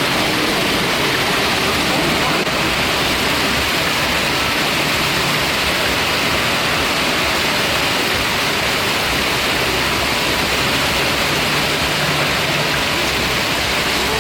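Heavy thunderstorm rain pouring down in a steady, loud hiss.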